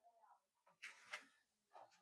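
Near silence, with two faint ticks about a second in.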